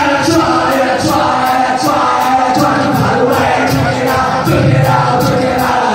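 Live post-punk band starting a song at full volume: a steady beat with electric guitars and bass, heard from within the audience.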